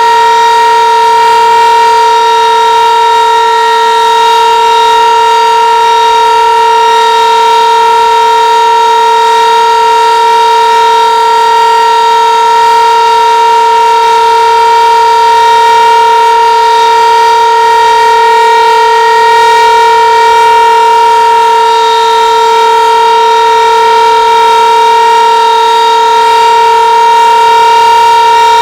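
Sentry 15V2T-B battery-powered DC dual-tone tornado siren sounding its steady alert signal, holding one constant pitch and a near-constant loudness.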